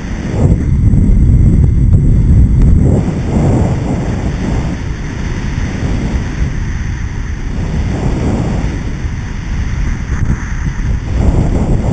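Wind buffeting the microphone of a head-mounted action camera during a downhill ski run, with the skis sliding over groomed snow. The rumble is heaviest for the first three seconds, then eases into uneven swells.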